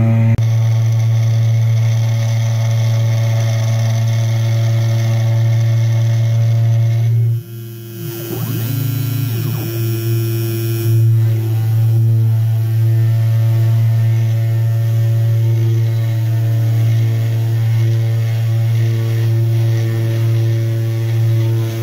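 500 W ER11 CNC spindle motor running with a steady hum while a V-bit carves end-grain wood on a Sienci Mill One. The sound drops briefly about seven seconds in, then a few seconds of rising and falling tones join the hum before it settles back to steady.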